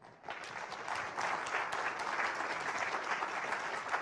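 Audience applauding: many hands clapping together, starting a moment in and keeping on steadily.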